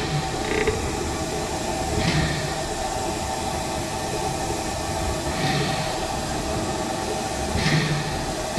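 Narrow-gauge steam locomotive running slowly, heard from the top of its boiler: a steady hiss and running noise with a few soft beats every couple of seconds.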